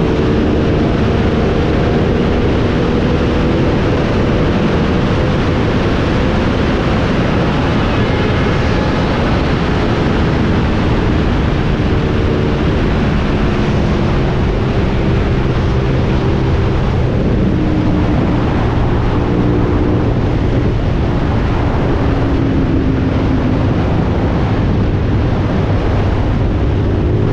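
Motorcycle at highway speed: loud wind rush over the microphone with the engine's steady drone underneath. The engine note sinks lower in the last part as the bike slows a little.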